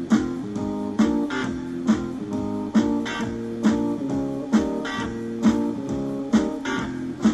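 Strummed guitar music with a steady rhythm, an accented strum about once a second and lighter strums between.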